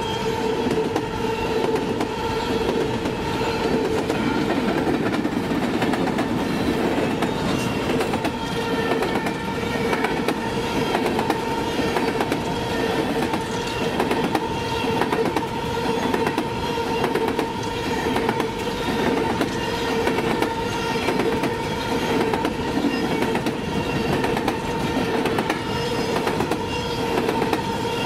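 Coal train's railcars rolling past, wheels clacking over the rail joints, with a steady high-pitched whine throughout.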